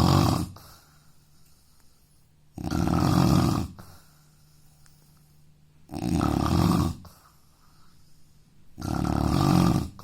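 A man snoring loudly in a steady rhythm. Each snore lasts about a second and comes roughly every three seconds, with quiet in between: one snore is just ending as the sound begins, and three full ones follow.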